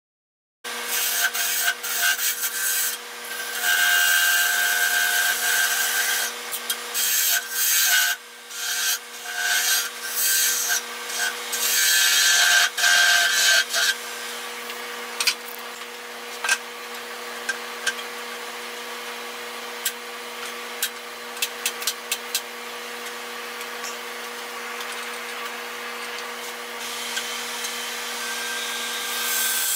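Wood lathe spinning a cherry wood blank with a steady hum. A turning gouge cuts the wood in repeated bursts of rough shaving noise through the first half. The cutting then stops, leaving the hum with scattered light clicks, and picks up again near the end.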